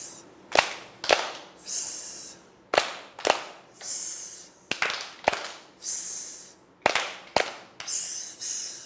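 Hand claps in pairs, each pair followed by a short mouth-made hissing 'shh' like a firework fizzing, the pattern repeated four times in an even rhythm.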